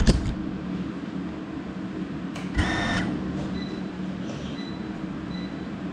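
A small FPV drone set down hard on a surface with a sharp knock, then a short electronic beep of about half a second a little over two seconds later, over a steady low hum.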